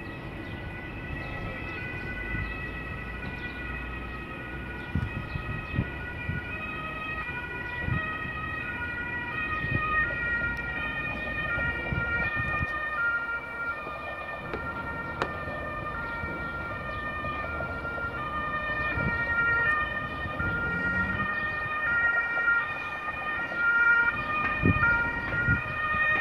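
Emergency vehicle sirens sounding, several at once, with their tones overlapping; one grows louder in the second half as it comes closer.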